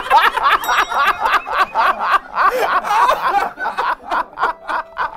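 Two men laughing hard in rapid "ha-ha-ha" bursts. Past the middle the laughter thins into separate pulses, about four or five a second.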